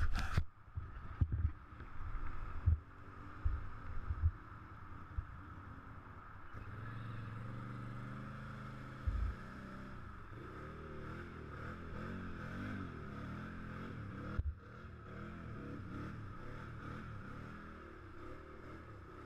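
Dirt bike ridden off-road: several knocks and thumps in the first few seconds, then the engine running steadily, its revs rising and falling.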